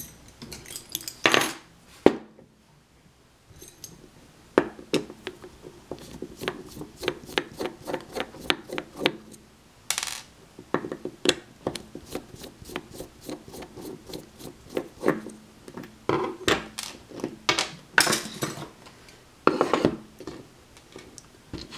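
Small metal lock parts clicking and clinking as a brass mortise lock cylinder is handled and taken apart, its cam plate coming off. A run of light taps is broken by a few louder clinks about a second in, around ten seconds in, and near the end.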